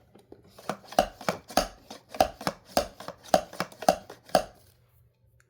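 Repeated sharp hard-plastic knocks from the Smush and Squish Smoothie Slime Kit's toy blender as it is worked to get the last slime out, about three knocks a second, stopping about four and a half seconds in.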